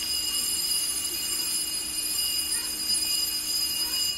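A station platform's electric departure bell ringing continuously, heard from inside the train carriage, then cutting off suddenly near the end.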